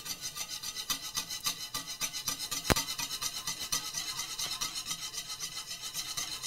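Wire balloon whisk beating a liquid egg-yolk mixture in a ceramic bowl, scraping steadily at about five strokes a second, with one sharp click a little under three seconds in. Oil is being drizzled in as it whisks, emulsifying into a mayonnaise-style dressing.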